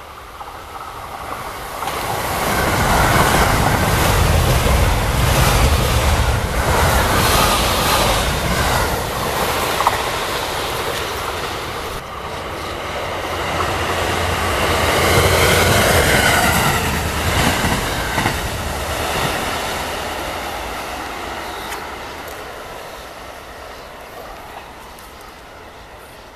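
Two JR West limited express electric trains passing at high speed one after another: a nine-car 681 series set, then, after a brief dip about twelve seconds in, a three-car 683 series set. Each brings a loud rush of wheel and rail noise that swells and fades, the second with tones that rise and fall as it goes by.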